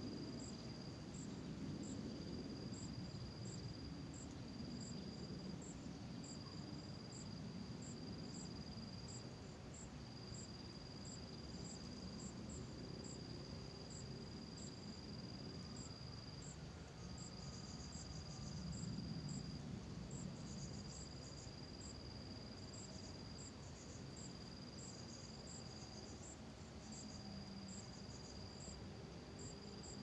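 Insects, crickets by their sound, trilling in the undergrowth: a steady high trill that breaks off briefly every few seconds, with a higher chirp repeating in a regular rhythm above it.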